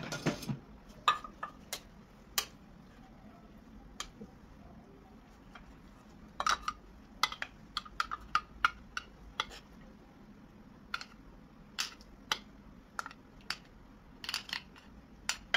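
Kitchen utensils clinking and tapping against dishes or cookware in scattered light knocks, some with a short ring. They bunch together about six to nine seconds in.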